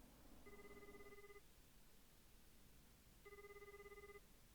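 A telephone ringing faintly: two trilling rings, each just under a second long, about three seconds apart.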